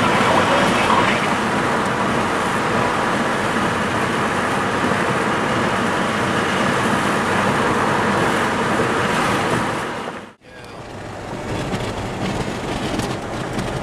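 Strong storm inflow wind blowing steadily and loudly, with a sudden brief drop-out about ten seconds in.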